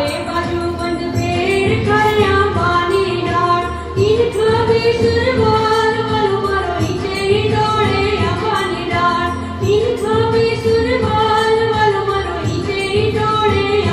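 A high voice, a woman's or a child's, singing a poem to a melody with held notes, over a steady rhythmic musical accompaniment.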